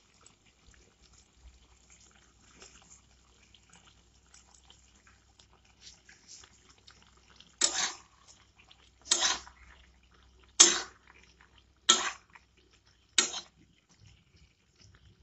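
Spatula stirring thick curry in a metal kadai: five short scraping strokes about a second and a half apart, after several seconds of only faint quiet sounds.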